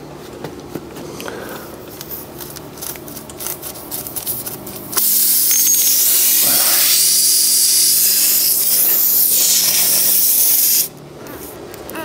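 Faint rubbing and clicks of a tool working in the tyre rubber, then, about five seconds in, a loud steady hiss of air escaping through the open puncture in the tyre tread once the reamer is pulled out. The hiss lasts about six seconds and cuts off abruptly.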